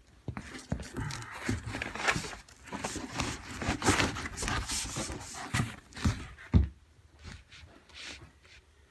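Cardboard box and packaging of a heavy battery being handled: rustling, scraping and clicking, with one heavy thump about six and a half seconds in, then quieter.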